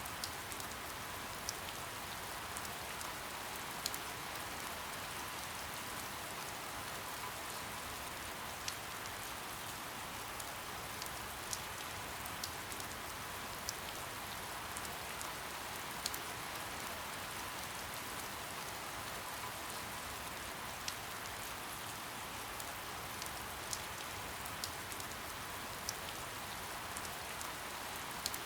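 Steady soft rain, an even hiss with scattered individual drops ticking sharply on a surface every second or so.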